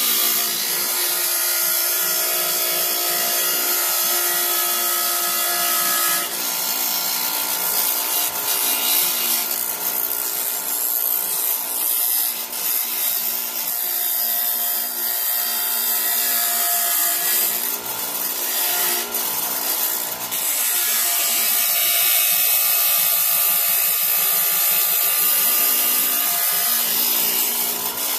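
Electric bench grinder running while a sheet of polycarbonate mirror plastic is ground against its wheel to shape it. A steady motor hum sits under a dense rasp that comes and goes in texture as the sheet is pressed and moved along the wheel, choppier through the middle.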